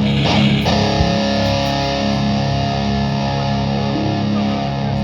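Distorted electric guitar struck on a chord and left ringing as a loud, steady drone, with a second strike just under a second in.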